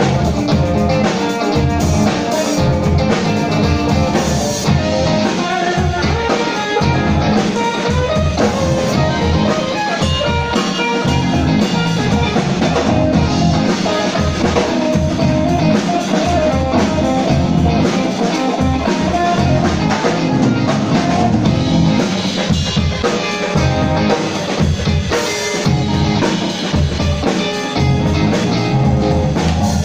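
Live rock band playing: electric guitar and bass guitar over a drum kit, heard loud from the audience.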